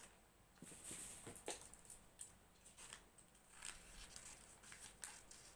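Scissors snipping through glued-on red craft paper, a run of faint, irregular snips.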